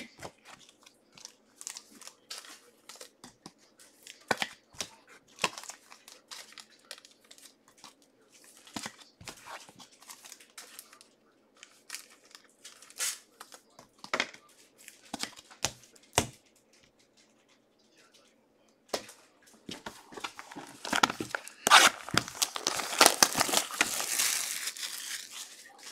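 Wrapping on a 2022 Panini Prizm No Huddle football card box being torn and crinkled off: a dense crackling rustle over the last several seconds. Before it, scattered light taps and rustles of cards and packaging being handled.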